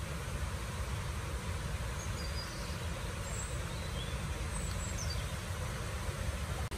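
Steady low rumble and hiss of vehicle noise, with a few faint high chirps in the middle.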